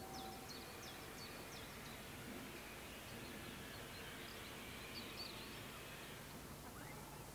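Small birds chirping over a faint steady background hush. At the very start, the end of a distant steam locomotive's whistle cuts off.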